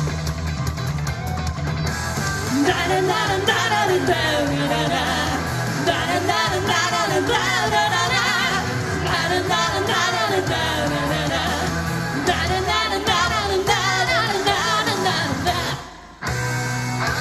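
Live J-pop rock song with a rock band backing. Singing comes in about two seconds in over the guitar-driven instrumental. Near the end the music cuts out for about half a second, then comes straight back in.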